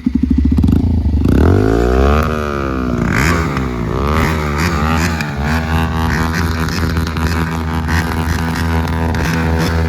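Single-cylinder motorcycle engine with an aftermarket SC exhaust, idling and being blipped repeatedly so the pitch dips and climbs several times. The exhaust note comes out strong even without a wrap.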